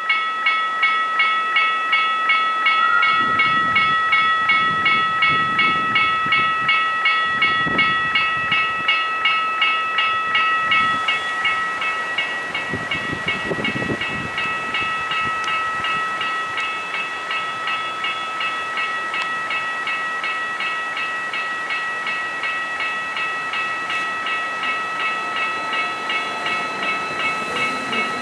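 Level crossing warning bell ringing about twice a second over a steady ringing tone. The pulses are strong for the first ten seconds or so, then fade and leave the steady tone. Low rumbles from a Rhaetian Railway train come and go underneath.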